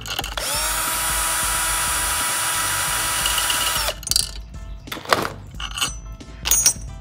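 Cordless drill spinning up, running steadily for about three and a half seconds and winding down, as it drives the bolt of a valve spring compressor on a 5.3 V8 cylinder head. A few sharp metal clicks and knocks of tools follow.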